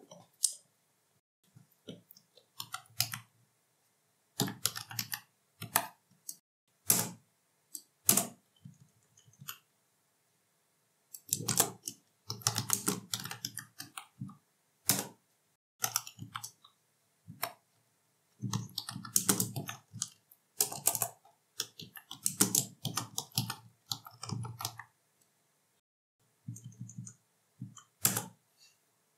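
Computer keyboard typing: runs of rapid keystrokes in bursts, with pauses of a second or two between them.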